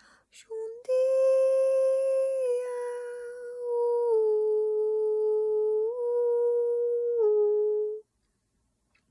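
A woman's voice humming long sustained tones in Light Language toning. After a brief break near the start, the held note steps down in pitch a few times and back up once, then stops about a second before the end.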